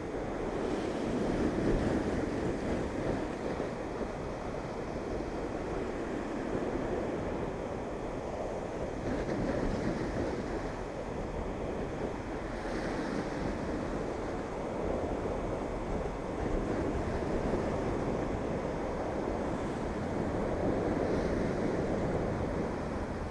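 Irish Sea surf breaking on the shore, a steady wash of waves that swells and falls back every few seconds.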